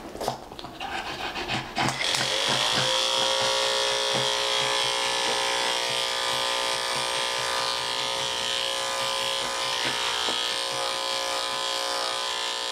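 Electric pet grooming clippers switch on about two seconds in, the motor rising briefly to speed and then running with a steady hum, used to cut out a mat behind a dog's ear.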